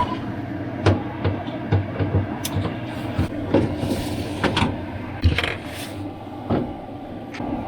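Irregular knocks, clicks and rattles of refrigerator panels and parts being handled and removed during disassembly, over a steady low hum.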